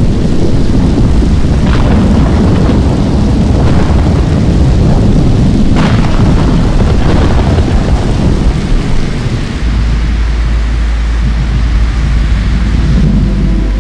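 Composed electronic sound design: a dense, loud thunder-like rumble with sharp crackling hits about two, four and six seconds in. About ten seconds in it gives way to a steady deep drone, and held musical tones come in near the end.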